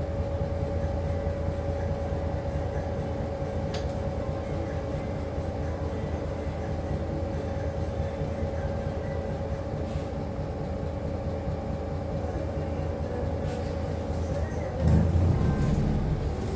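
City bus in motion, heard from inside the cabin: a steady low rumble with a steady whine over it. About fifteen seconds in the whine stops and a louder, rougher rumble takes over.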